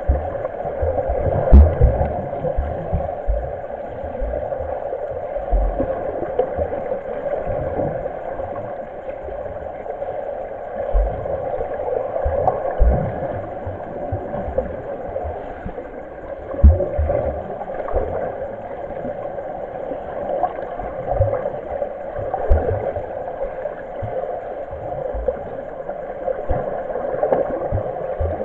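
Muffled churning of pool water picked up underwater while swimmers kick and turn at the wall, with irregular dull low thumps.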